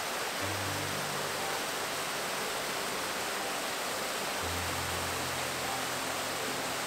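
Small waterfall cascading over rock into a pool: a steady, even rush of falling water. Low held notes of background music sound beneath it, about half a second in and again from about four seconds on.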